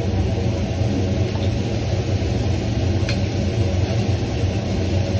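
Steady low drone of a commercial Chinese kitchen's gas wok range and exhaust hood running, with a faint click about three seconds in.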